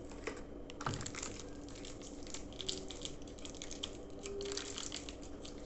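Parts being handled at a workbench: irregular light clicks and short scrapes, with a few sharper clicks near the start, over a faint steady hum.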